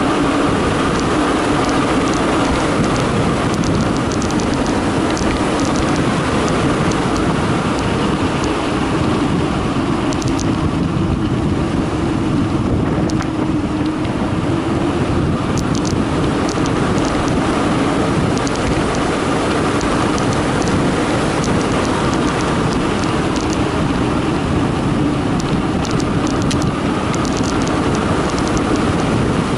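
Steady wind noise on the microphone and tyre rumble on concrete as a Carraro Big 827 mountain bike coasts downhill at speed, with scattered small rattles from the bike.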